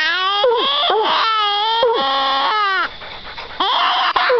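Coonhounds bawling at a treed raccoon: long, drawn-out howls that bend in pitch, sometimes overlapping, with a short lull about three seconds in.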